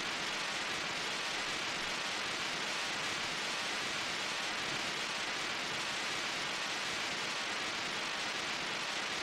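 Steady, even hiss of noise, like static or rushing rain, holding a constant level.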